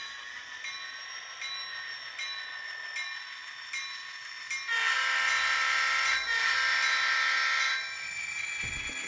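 Sound-decoder horn of an N scale EMD GP39-2 model locomotive (ESU LokSound) blowing two long blasts, one straight after the other, about halfway through; it is the loudest thing here. Before it the decoder's engine sound runs quietly under light ticks about every three quarters of a second.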